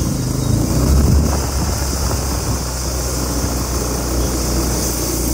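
Motorcycle engine running during a ride, with wind rumbling on the microphone.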